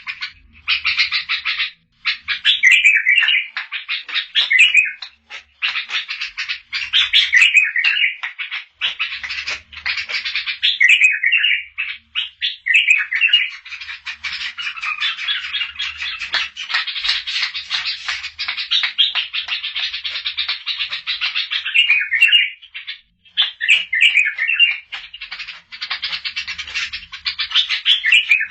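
Bulbul singing a long, continuous run of rapid chattering and warbling phrases, with brief pauses about two seconds in and again about twenty-three seconds in.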